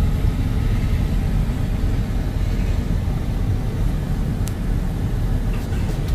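Steady low rumble of a vehicle's engine and tyres heard from inside the cab while it is driven slowly, with one short click about four and a half seconds in.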